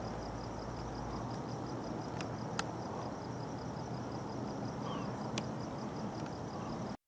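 Outdoor night ambience: a steady dull rumbling noise with a faint, fast, high pulsing over it and a few sharp clicks, cutting off abruptly near the end.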